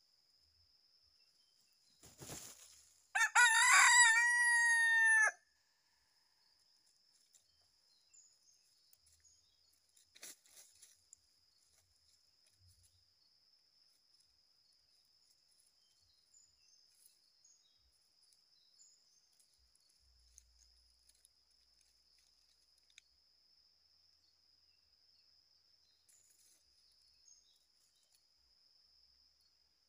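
A rooster crows once, a single call about two seconds long, about three seconds in, just after a brief rustle. A faint steady high insect drone runs underneath.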